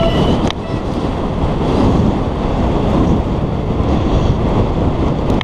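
Wind buffeting a helmet-mounted camera on a downhill mountain bike at speed, mixed with the noise of the tyres and bike running over a dry dirt track.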